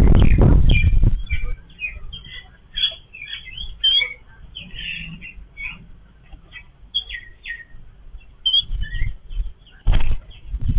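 A family of yellow-billed babblers calling, a busy string of short chirps and squeaky notes from several birds. A loud low rumbling noise covers the first second and comes back near the end.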